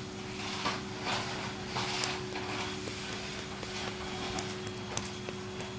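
Sticky homemade slime being kneaded and pulled in the hands: soft, irregular squelching and smacking noises, several a second at times, with a couple of sharper ticks near the end.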